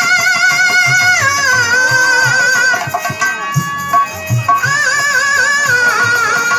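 Instrumental interlude of a kajri folk song: a held melody line with a wavering pitch over regular hand-drum beats. The music thins out briefly a little past the middle, then the melody comes back in full.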